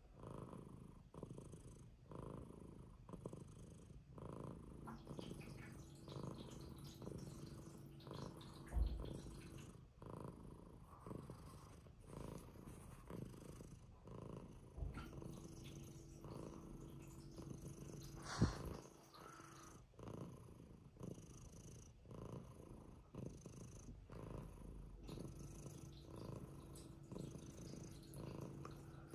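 Long-haired tabby cat purring steadily right at the microphone, the purr pulsing about once a second. Two short knocks stand out, about nine and eighteen seconds in.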